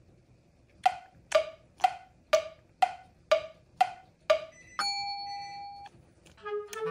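Comic sound effect: a wood block knocked eight times at an even pace of about two knocks a second, then a single held bell-like ding lasting about a second.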